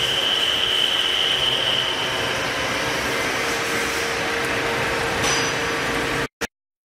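A CNC lathe turning a metal workpiece: a dense, steady cutting and machine noise with a steady high whine that fades out about two seconds in. The sound cuts off abruptly near the end.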